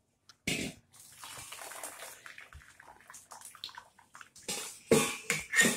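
Boiled noodles and their hot cooking water poured from a steel pot into a steel colander, the water splashing through and draining. It starts suddenly about half a second in, runs as a steady pouring hiss, and ends with a few sharper, louder splashes and knocks near the end.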